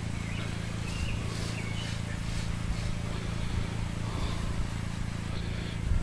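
Hand pump sprayer hissing as coil cleaner is sprayed onto an air-conditioner condenser's coils, over a steady low hum. A few faint bird chirps come through early on.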